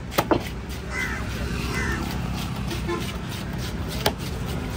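A crow cawing twice, about a second in and again near two seconds. Among the calls come sharp knocks of a heavy knife chopping fish on a wooden block: two close together near the start and one about four seconds in.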